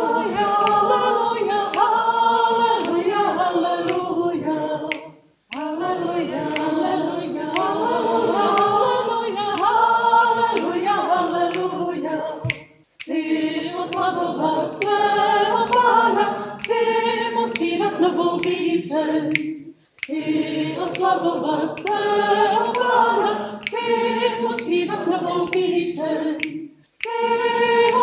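A group of voices singing a cappella, like a choir or congregation, in phrases about seven seconds long with short breaks between them.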